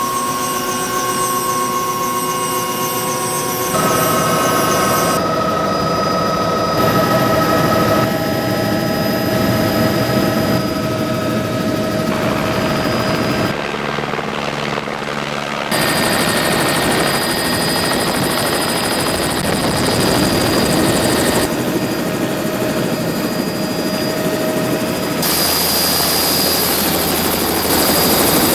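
Helicopter turbine whine and rotor noise, running steadily. The sound shifts abruptly every few seconds as one clip is cut to the next.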